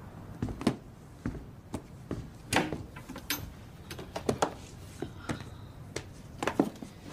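A series of irregular knocks, taps and clatters, about a dozen short sharp strokes at uneven intervals, as objects are handled and set down.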